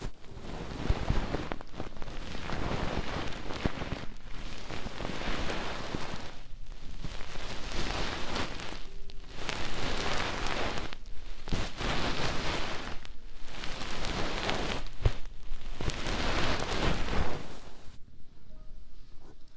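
Hand rubbing and scratching over the ear of a binaural ASMR microphone: a dense crackling rustle in strokes of about two seconds with brief pauses between them, with a few sharper knocks. It stops shortly before the end.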